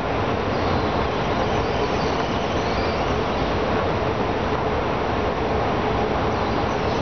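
Escalator running under a rider on the way down, a steady, even mechanical noise from the moving steps and handrail.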